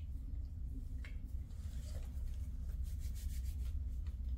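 Paper tissue rubbing and crinkling as it wipes a dog's mouth and is then folded by hand, with a few faint clicks, over a steady low hum.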